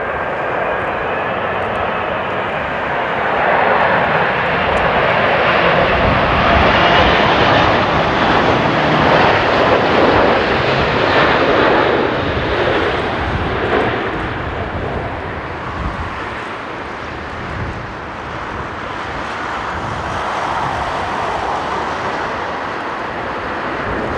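Boeing 777-200ER twin jet engines roaring as the airliner comes in and lands close by. The roar is loudest around the middle, eases off, then builds again near the end. Gusty wind rumbles on the microphone underneath.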